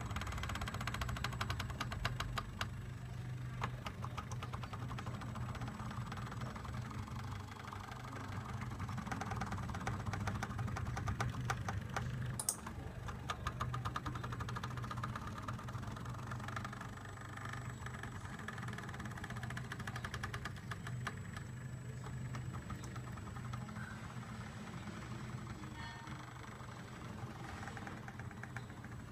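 CNC laser cutter running a cut: a steady mechanical hum with fine, rapid ticking.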